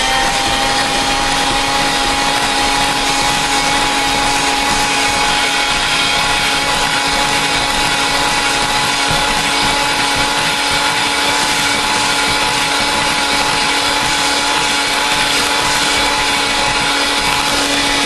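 Electric hand mixer running steadily at one speed, its beaters whipping a thick pudding mixture in a glass bowl.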